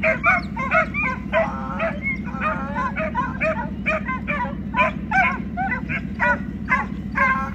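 A pack of hounds baying in full cry while running a coyote: a rapid string of short, overlapping barks from several dogs. A steady low hum runs underneath.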